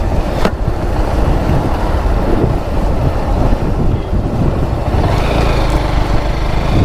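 Wind rushing over the microphone on a moving motorcycle, with the engine running underneath. There is a short click about half a second in.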